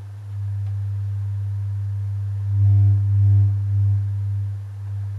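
Steady low sine test tone, around 100 Hz, from a signal generator played through the Luxman R-5030 receiver's amplifier. About two and a half seconds in, it gets louder in a few swells, with buzzier overtones added, then settles back to the plain tone.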